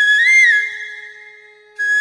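Background music: a high, pure-toned flute-like melody holding one note with a brief rising turn. It fades away about half a second in, and the next phrase comes in near the end.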